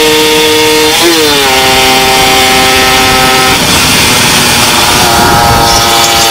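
Suzuki Satria 120 S two-stroke engine with an aftermarket side exhaust, running hard under way. About a second in, the pitch falls and settles lower as it shifts up a gear. A little past halfway the engine note drops away for about a second and a half, then comes back.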